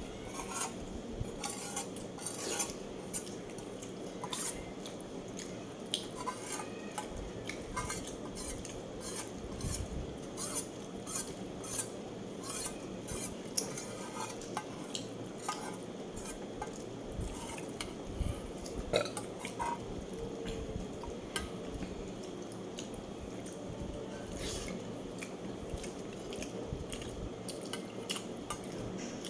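Cutlery clinking and scraping against a plate while eating, with scattered short clicks over a steady background hiss.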